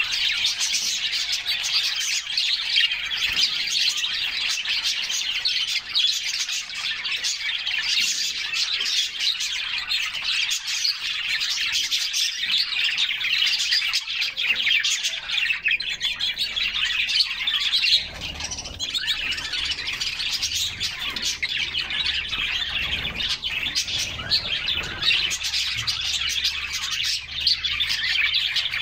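A group of canaries chirping and singing together in a dense, unbroken chorus of quick chirps and trills.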